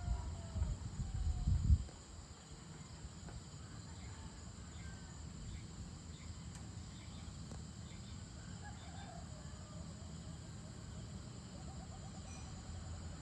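Evening outdoor ambience: a steady chorus of insects with occasional short bird chirps, and a rapid bird trill near the end. A low rumble swells and peaks in the first two seconds, then drops away.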